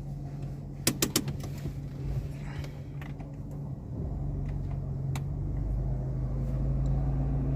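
Maruti Suzuki Baleno petrol engine idling steadily, with a cluster of sharp clicks about a second in and a few lighter clicks later. The low engine note grows slightly louder about halfway through.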